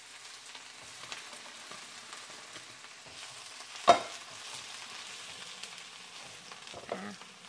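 Hot water and boiled ramen noodles poured from a pot into a plastic colander in a sink: a steady rush and splatter of draining water, with a sharp knock about four seconds in.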